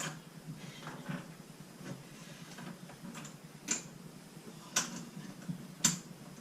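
Three sharp clicks about a second apart over faint handling noise, from hand tools and hardware being worked while fastening a hinge.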